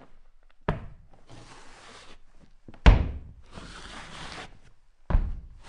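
Three heavy, echoing thumps about two seconds apart, the middle one loudest, like something pounding on a door or wall.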